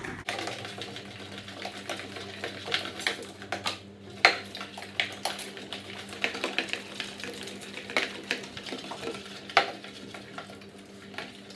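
Spoon and spatula stirring slime in stainless steel bowls: continuous scraping with irregular metallic clinks against the bowl sides, a few of them sharper and louder.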